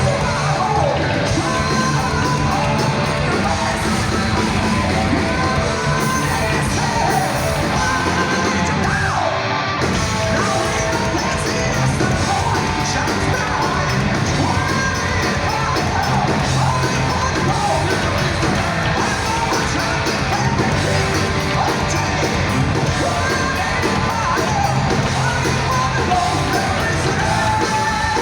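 Live rock band playing with a singer, loud electric guitars and drums, the vocals sung and yelled in a hall.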